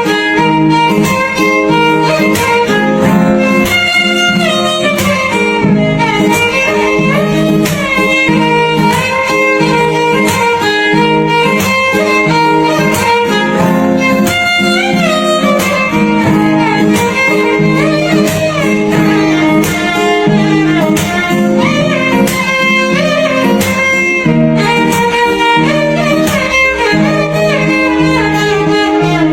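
Background music led by a bowed violin melody over a steady low accompaniment with a regular beat.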